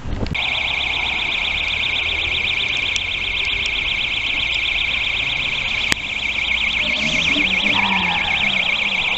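Car alarm siren sounding continuously with a fast up-and-down warble, set off by the thunder. A single sharp click cuts in about six seconds in.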